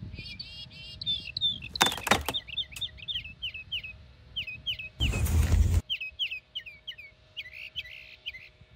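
Small birds chirping in quick, repeated short notes throughout. Two loud noises cut across it: a brief one about two seconds in and a longer one about five seconds in.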